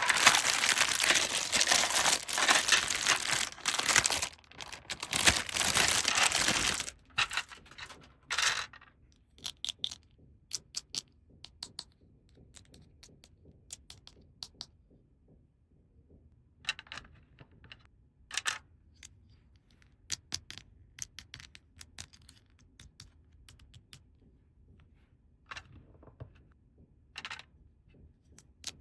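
Plastic toy packaging torn open and crinkled for about seven seconds, with a brief pause partway. After that come scattered light clicks and taps as small plastic toy pieces are handled.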